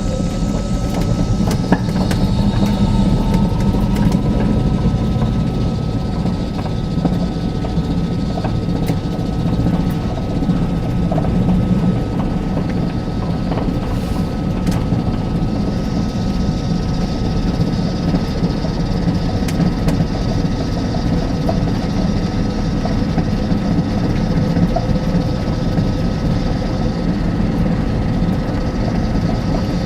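Electric van's three-phase induction motor and inverter whining while driving. The whine finishes rising about a second in, then holds at a steady pitch over a low road rumble.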